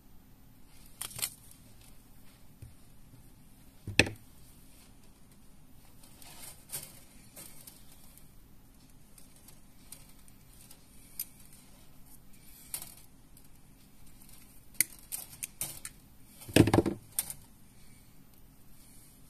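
Close-up handling sounds of small pliers and fingers working a thin wire loop and metal hook on a handmade mandula lure: scattered small clicks and rustles, with a sharp click about four seconds in and a louder, longer clatter near the end.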